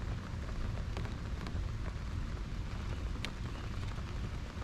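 Light drizzle falling: a steady hiss with a few faint drop ticks over a steady low rumble.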